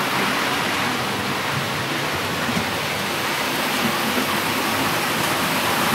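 00 gauge model trains running on the layout, giving a steady rushing hiss of wheels on the rails and electric motors.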